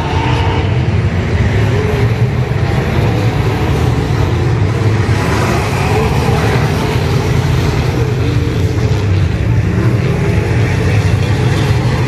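A pack of IMCA Modified dirt-track race cars with V8 engines running hard around the oval: a loud, continuous engine sound whose pitch wavers up and down as the cars come through the turns.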